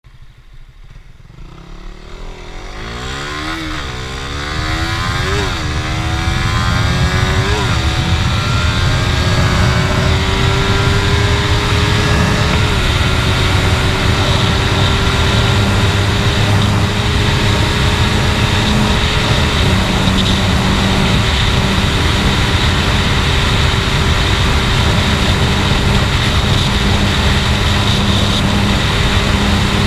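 Suzuki Satria F150's single-cylinder four-stroke engine under full-throttle acceleration. Its pitch climbs and drops back at each upshift: three quick shifts in the first eight seconds, then two longer pulls. It then holds high revs in top gear near its top speed of about 170 km/h, with heavy wind noise on the microphone.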